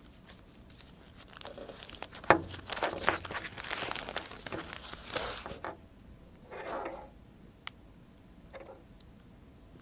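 Oil paper crinkling and rustling as it is unwrapped from a common-rail injector control valve assembly, with one sharp tap about two seconds in. After about six seconds the rustling drops to a few light rustles and a small click.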